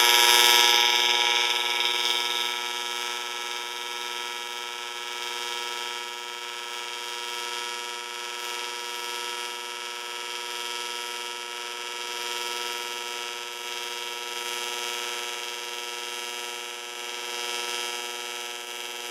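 AC TIG welding arc on aluminium from a Miller Dynasty welder, pulsed at 100 pulses per second: a steady electric buzz made of many tones. It is louder with a high hiss for the first second or two, then settles to a steadier, quieter buzz.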